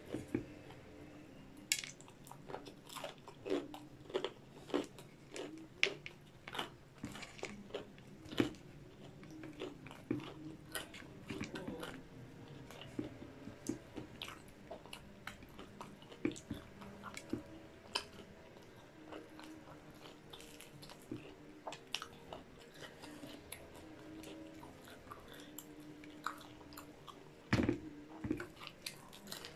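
Close-miked chewing and biting of a fried-chicken tortilla wrap, with many short crunches of the crispy breading throughout and a louder cluster of crunching near the end.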